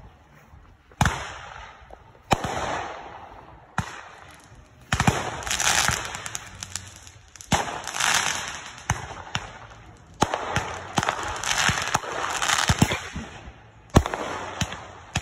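Fireworks going off on the ground one after another: about seven sharp bangs a second or few apart, each followed by a second or two of hissing, crackling spray.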